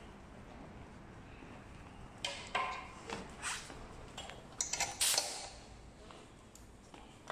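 A series of light clinks and knocks, bunched between about two and five seconds in, over a faint steady hiss: handling of metal parts and fittings on a small air compressor.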